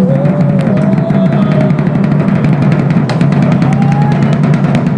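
Drums playing a steady, rapid rolling beat.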